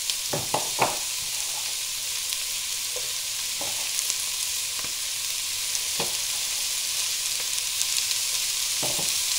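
Chopped onions and carrots sizzling in olive oil in a pot, a steady hiss, with a few short knocks: several in the first second and single ones later.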